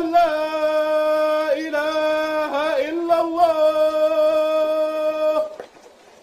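A man's solo voice chanting the adhan, the Islamic call to prayer, in long held notes with ornamented turns between them. It stops about five and a half seconds in.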